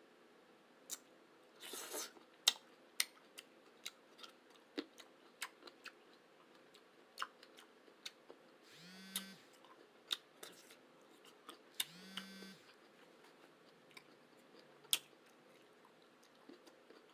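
A person chewing food close to the microphone: scattered wet mouth clicks and smacks, with two short voiced sounds from the eater about nine and twelve seconds in.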